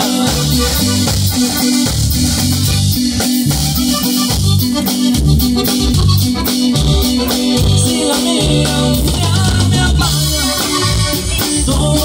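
Live band playing an instrumental passage of a corrido: a Gabbanelli button accordion over bass and a drum kit, with a steady beat.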